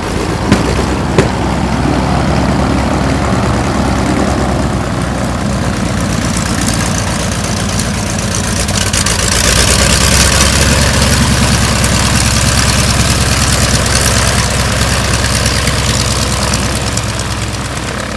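Radial engines of vintage biplanes running at low power while taxiing, a steady low drone that grows loudest with a rush of noise about ten seconds in as one passes close. Two sharp clicks in the first second or so.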